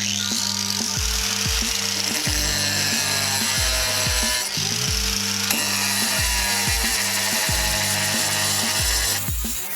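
Galax Pro 4.3-amp angle grinder with a diamond wheel cutting tile, a high whine with gritty hiss, easing off briefly midway and stopping about nine seconds in. Background music with a steady beat plays throughout.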